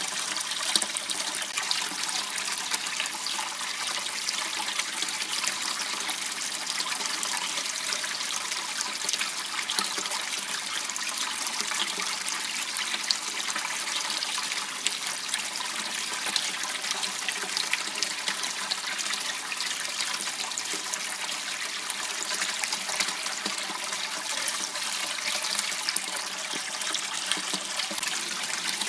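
Steady trickle and rush of water flowing in a small waterway.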